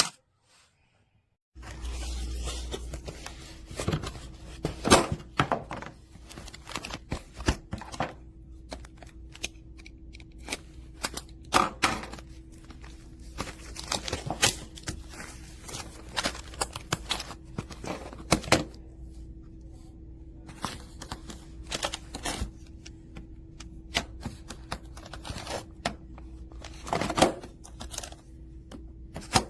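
Plastic magnetic building tiles clicking and clacking as they are handled and snapped together: irregular sharp clicks, some louder knocks, over a faint steady hum. The first second or so is silent.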